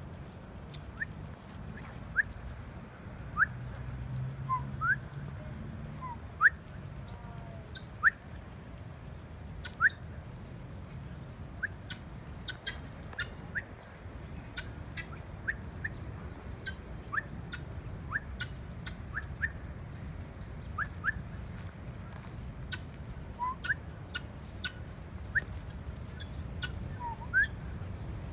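A flock of helmeted guineafowl giving short, sharp rising chirps, dozens of them at irregular intervals, some louder than others, over a steady low rumble.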